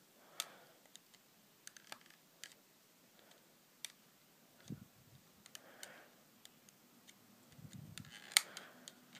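Small flathead screwdriver prying at the plastic clip slots of a TomTom XL GPS unit's case: scattered faint clicks and ticks of metal on plastic, with a dull knock about halfway and a sharper click near the end.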